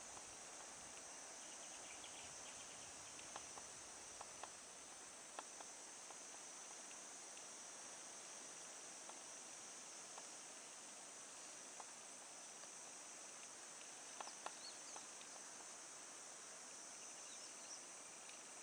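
Faint, steady high chirring of insects, with a few soft clicks and taps scattered through.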